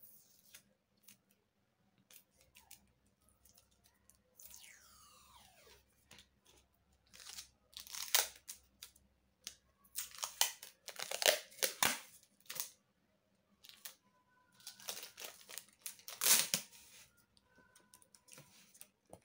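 Brown packing tape being pulled off its roll, several short tearing pulls with crinkling of the tape between them.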